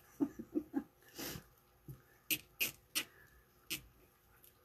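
Hands working a burlap petal into the ties on a wreath board: soft rustles in the first second or so, then a few sharp, separate clicks and ticks from handling.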